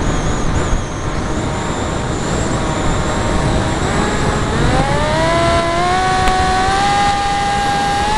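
Electric brushless motor and propeller of a Zagi flying wing (Turnigy 3900kv) under a steady rush of wind on the onboard camera's microphone. About four seconds in the motor whine climbs steeply in pitch as it speeds up, then holds high and strong.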